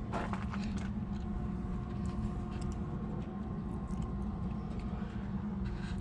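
Steady low hum of an engine running in the background, with a few faint ticks.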